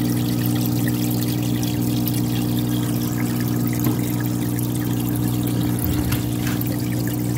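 Small water pump in a fish tub running with a steady hum, while water trickles and splashes.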